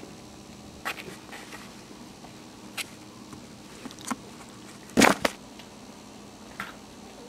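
Small puppies moving about, with scattered light knocks and taps; the loudest is a double knock about five seconds in, over a faint steady hum.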